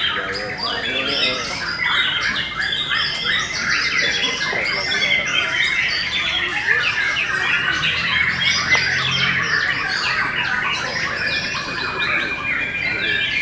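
Many caged canaries singing at once: a dense, unbroken tangle of rapid trills and chirps.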